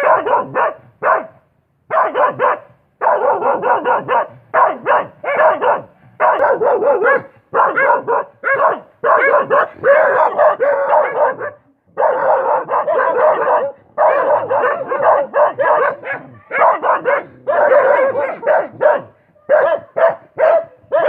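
Dog barking over and over in rapid runs, with brief pauses between them.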